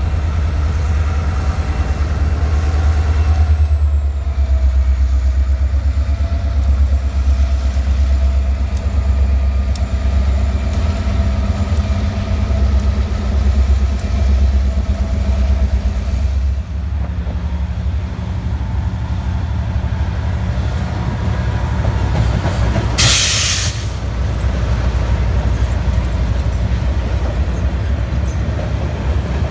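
Diesel locomotives of a CSX freight, including an EMD GP40-2, rumble past with rail and wheel noise. Partway through, this gives way to an Amtrak Piedmont passenger train's diesel locomotive running as it departs, with a short burst of hiss a few seconds later.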